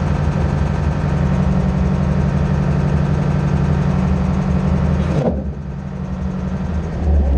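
Mercedes-Benz MB Trac 800 tractor's six-cylinder diesel engine running steadily. About five seconds in, its sound changes abruptly and drops; near the end a deeper, louder engine note builds.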